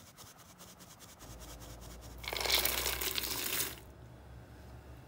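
Chopped walnuts and chocolate chips tumbling into a stainless steel mixing bowl: a crisp, crunchy rattle lasting about a second and a half, starting about two seconds in.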